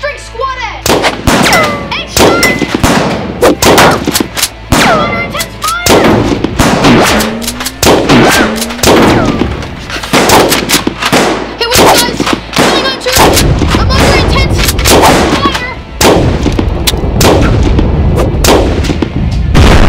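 Battle sound effects of rapid gunfire, shot after shot in dense bursts. A deep rumble like explosions or artillery joins about two-thirds of the way through and carries on to the end.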